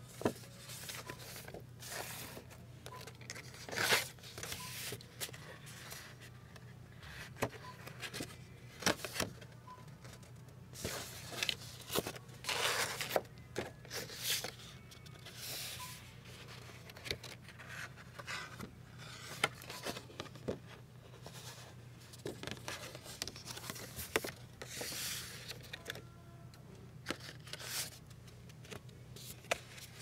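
Paper greeting cards being handled at a store card rack: cards slid against each other, taken out and turned in the hand, in a run of short scrapes, rustles and sharp clicks over a steady low hum.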